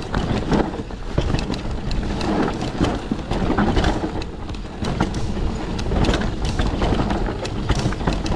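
Mountain bike riding fast down a rough dirt trail: tyres crunching over dirt and stones, with frequent knocks and rattles from the bike over bumps and wind rumbling on the microphone.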